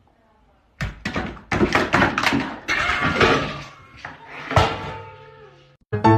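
A string of loud thumps and knocks mixed with a cat's cries, starting about a second in and dying away near the end.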